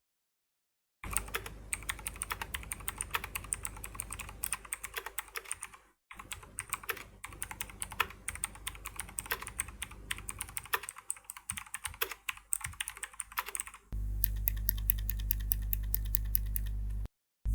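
Typing on a Tag Warrior mechanical keyboard with Outemu switches: a fast, uneven run of key clicks, with a brief pause about six seconds in. For the last few seconds a steady low hum sits under quicker, more even ticks.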